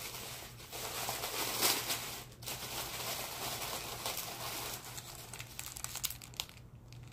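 Packaging crinkling and tearing as gifts are unwrapped by hand, busiest in the first few seconds and quieter near the end.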